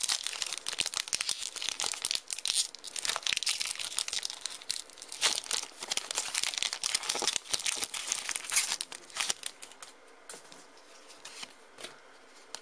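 Foil Pokémon booster-pack wrapper crinkling and tearing as it is opened by hand, a dense crackle that dies down about ten seconds in.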